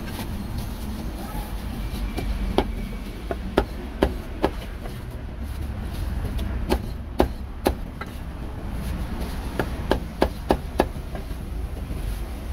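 Meat cleaver chopping on a wooden chopping block: sharp, irregular strikes, several coming in quick runs of three to five, over a steady low rumble.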